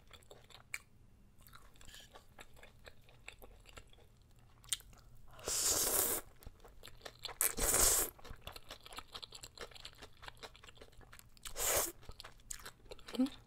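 Close-miked eating of black bean sauce noodles with cucumber: soft crunchy chewing of fresh cucumber throughout, broken by three loud noodle slurps, about five and a half, seven and a half, and near twelve seconds in.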